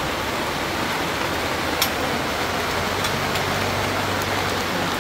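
Heavy rain falling steadily on a tent, with one sharp click about two seconds in.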